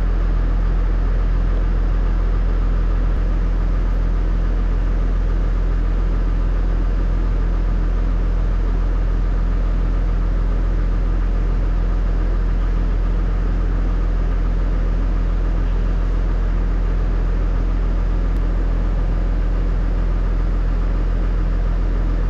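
Farm tractor's diesel engine running steadily, with no revving, just after an oil and filter change: it is run for a couple of minutes so the fresh oil fills the lubrication circuit and new filter before the level is checked again.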